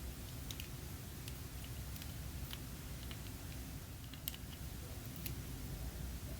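Scattered light clicks and taps of small hard items being handled, about eight or nine in all and irregularly spaced, the sharpest about four seconds in, over a low steady rumble.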